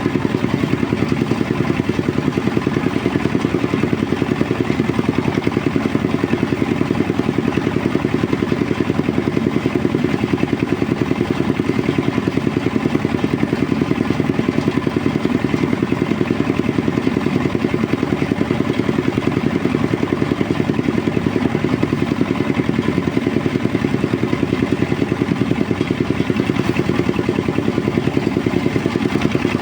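Engine-driven rice threshing machine running steadily, its engine keeping an even, rapid pulse without change.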